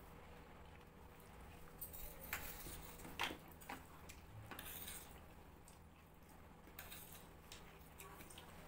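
Steel spoons clinking and scraping faintly against stainless steel plates during a meal: a handful of short, scattered clicks.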